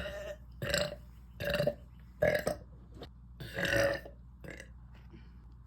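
A young woman burping repeatedly: four burps in about four seconds, the last one the longest. They are what she calls nauseous burps from a gassy, bloated stomach.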